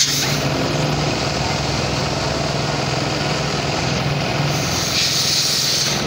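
Small petrol engine running steadily: the engine of a portable air compressor supplying the hose used to pump up a car tyre. A brief hiss comes near the end.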